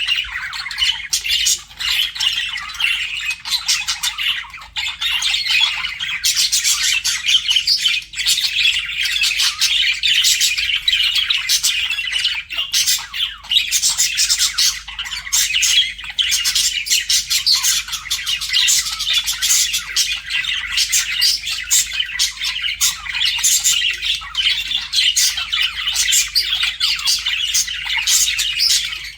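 Budgerigars chattering without pause: a dense run of quick chirps, warbles and harsh squawks.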